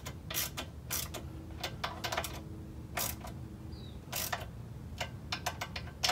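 10 mm wrench turning steel lock nuts on carburetor mounting studs, tightening them a little at a time. It gives about a dozen sharp metallic clicks at uneven intervals, coming more quickly near the end.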